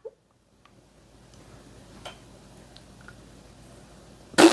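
Quiet kitchen room tone with a few faint ticks, then near the end a short, loud clatter of a fork against a plate.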